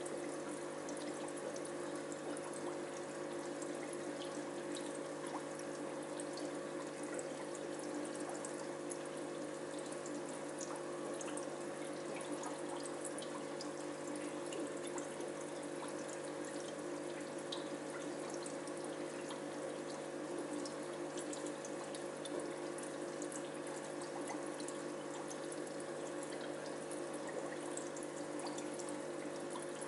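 Aquarium water circulating: a steady trickling, bubbling hiss from the tank's filter and aeration, with a steady hum underneath.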